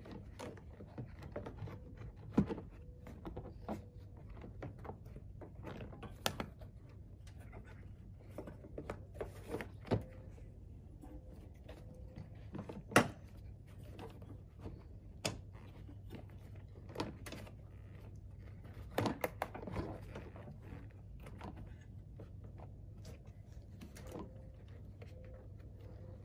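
Scattered clicks and knocks of a Cadillac CTS's plastic windshield cowl panel being handled and pressed into place, with the sharpest knock about halfway through.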